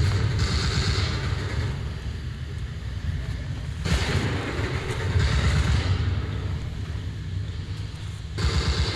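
Steady low rumble on a body-worn microphone, with three stretches of rustling: at the start, about four seconds in, and near the end.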